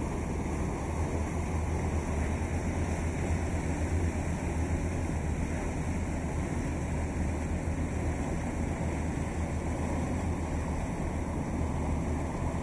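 Steady low engine drone of a boat under way, with wind and water noise.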